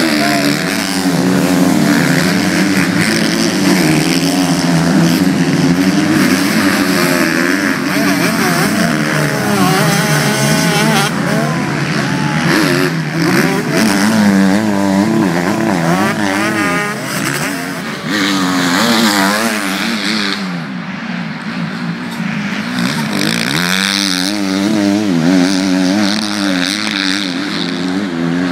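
Several MX2-class motocross bikes racing on a dirt track, their engines revving up and down over and over as the riders shift and accelerate past.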